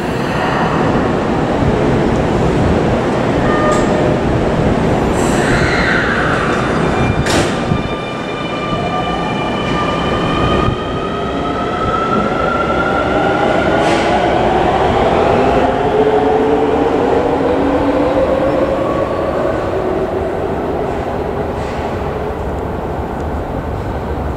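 A subway train running in the tunnel out of sight, with a steady rumble of wheels on rails. Through the middle, several whining tones slowly fall in pitch, as the train's motors do when it slows. A few sharp clicks and a brief squeal come earlier on.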